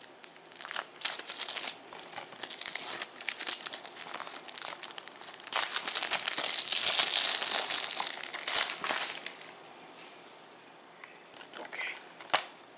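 Plastic shrink-wrap being torn and peeled off a Blu-ray case, crinkling and crackling, heaviest about six to nine seconds in. After that it goes quieter, with one sharp click near the end.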